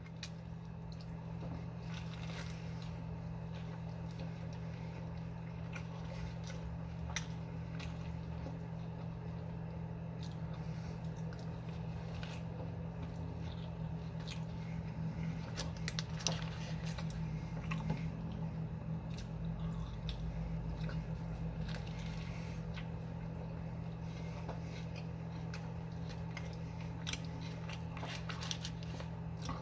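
A person chewing and biting into fast food close to the microphone: wet chewing with scattered crunches and crackles, over a steady low hum.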